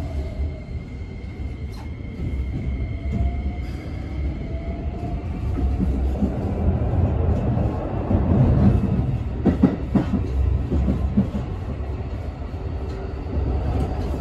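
Keikyu New 1000 series (1500 subseries) electric train heard from inside the car as it pulls away from a station. The traction inverter and motors whine in tones that step upward in pitch as the train gathers speed, over a steady wheel-and-track rumble. A cluster of clicks from rail joints or points comes about two-thirds of the way in. The inverter is one the uploader takes for a Toyo Denki SiC unit like the 1890 subseries'.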